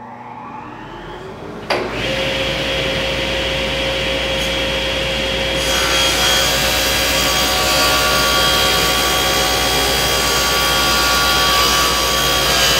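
SawStop table saw starting up, its motor winding up with a rising whine, then running steadily. From about six seconds in, the blade rips through a sheet of plywood, trimming off its rough factory edge.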